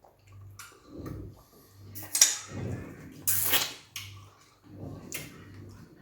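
Close-up eating sounds of fufu with peanut soup: a few short wet mouth noises and slurps, with a faint low hum pulsing about twice a second underneath.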